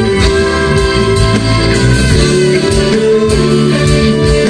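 Live band music played loud through a stage sound system, with guitar to the fore and a steady beat.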